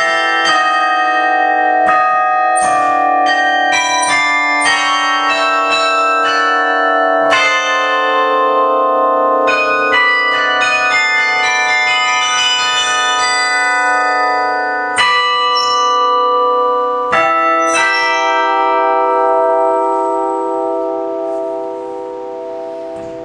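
Carillon bells played from the keyboard in a quick run of struck melody notes, then a few final chords that are left to ring and fade away: the closing bars of a tune.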